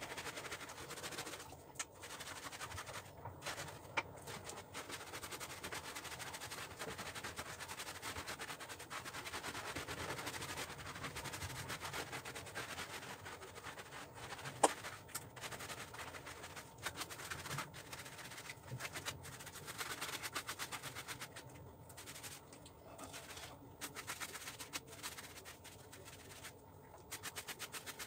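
Brush scrubbing through a wet, soapy German Shepherd's coat in quick rasping strokes, with a few short pauses. There is a single sharp click about fifteen seconds in.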